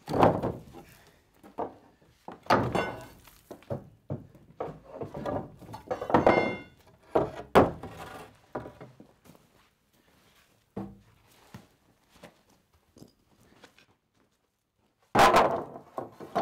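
Old wooden barn floor boards being pried up with a pry bar, the planks knocking and clattering as they come loose and drop, with a brief squeak about six seconds in. After a quiet stretch there is a loud clatter of boards being set down about fifteen seconds in.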